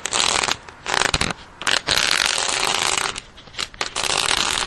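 Steel hose nozzle on the end of a garden hose dragged across cement pavement, scraping in several separate strokes of about a second each with short pauses between them.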